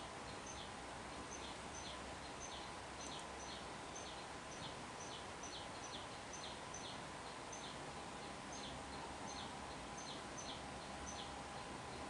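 Faint steady background hiss and hum, with a small bird chirping over and over, short high chirps about two or three a second.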